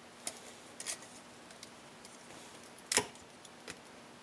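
A few small, sharp metallic clicks as a piston ring is worked into its groove on an MGB piston by hand, the loudest click just before three seconds in.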